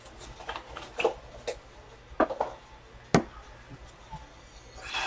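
Trading cards being handled on a table: a few light, separate clicks and taps.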